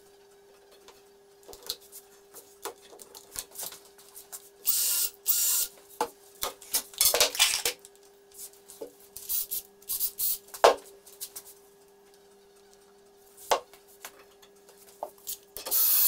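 Hand-work sounds at a woodworking bench while a timber frame joint is screwed and glued: short hissing bursts, scrapes and knocks of wood and tools being handled, over a faint steady hum. Near the end a cordless drill-driver starts to run.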